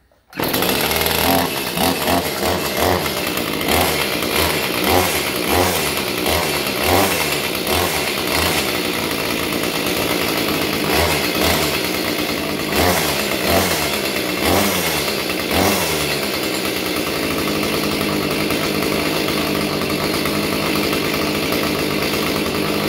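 Echo CS-310 chainsaw's small two-stroke engine fires up from a cold start on part choke. For about the first sixteen seconds it runs unevenly, its speed surging up and down about once a second, then settles into a steady idle as it warms.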